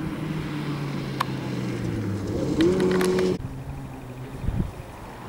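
Volvo 240 rally car's engine running hard on gravel, its note sinking, then revving up sharply about two and a half seconds in. The sound cuts off suddenly a little later and gives way to a quieter engine note.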